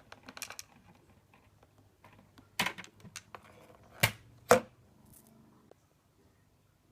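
Hard plastic clicks and knocks from the detachable dust bin of a Dyson DC54 cylinder vacuum being handled: its release button pressed and the bin emptied. There are a few light clicks, then one sharp knock and, a second and a half later, two more close together.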